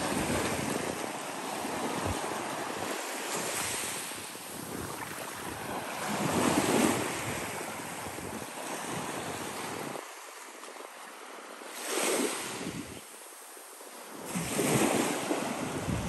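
Small waves breaking and washing up the sand, the surf swelling and fading every few seconds and loudest about six to seven seconds in. Wind buffets the microphone with a low rumble.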